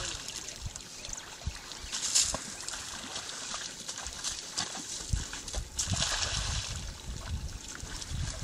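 Water splashing and sloshing, with irregular low thuds and surges of hiss.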